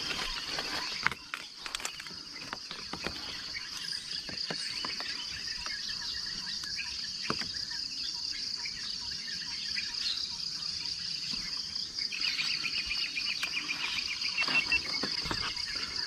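A steady, high-pitched insect chorus with a fast, even pulse. From about twelve seconds in, a second, slightly lower rapid trill joins it. A few faint handling clicks come in the first couple of seconds.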